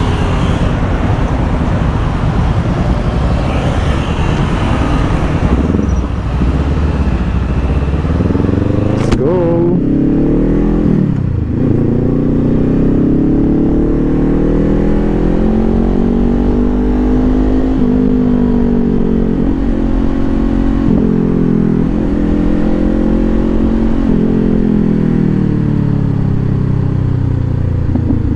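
Honda CBR500R's parallel-twin engine pulling away and accelerating through the gears, its pitch climbing in each gear and dropping at each upshift. Before that, about nine seconds of traffic noise and engine while stopped, ending in a sharp click.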